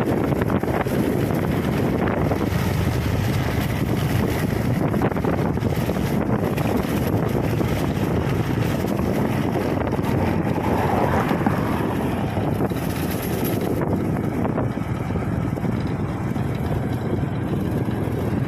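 Motorcycle riding at road speed: its engine running steadily under heavy wind rushing over the microphone.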